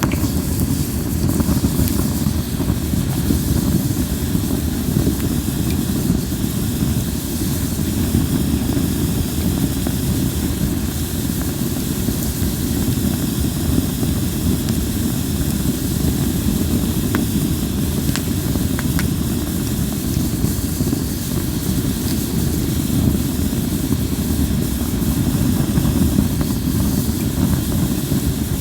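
Linden-wood campfire burning: a steady low rumble of flames, with a few faint pops a little past the middle.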